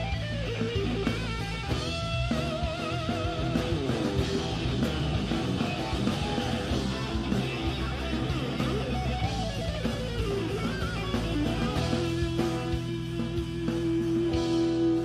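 Live rock band playing an instrumental break: an electric guitar lead with bent, wavering notes over bass and keyboard, settling onto a long held note near the end.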